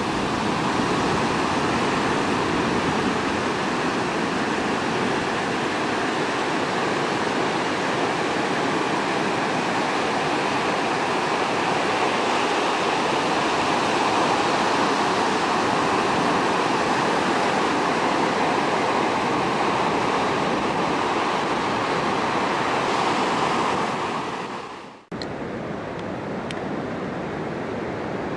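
Ocean surf breaking and rushing steadily, with wind on the microphone. It cuts off abruptly about 25 seconds in, and a quieter steady rush of the same kind follows.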